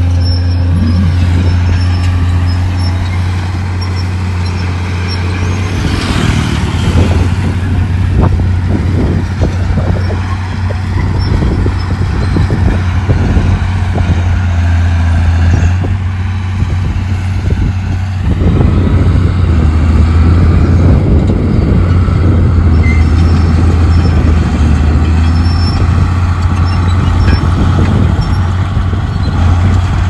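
Heavy diesel construction machinery running with a steady low drone, with clanking and rattling that sets in about six seconds in and grows louder after about eighteen seconds.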